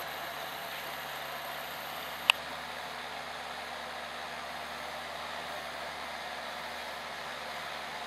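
John Deere 6320 tractor's four-cylinder diesel engine running steadily under load as it pulls a four-furrow plough. A single sharp click cuts through about two seconds in.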